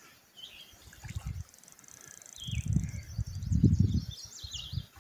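Small birds chirping and twittering in short high calls, with low rumbling bursts about a second in and again through the second half, loudest toward the end.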